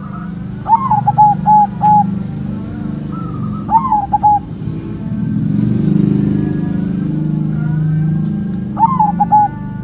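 Zebra dove (perkutut) singing three times: each phrase starts with a rising note and runs into a quick string of short, bubbling coos. The phrases come about a second in, around four seconds in, and near the end, over a steady low background rumble.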